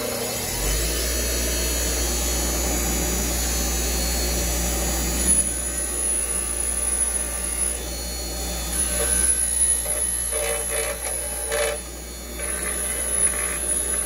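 Bench grinder motor spinning up and running steadily. From about five seconds in, an engine valve is pressed against its wire wheel in several bursts of scratchy scrubbing to clean the valve face.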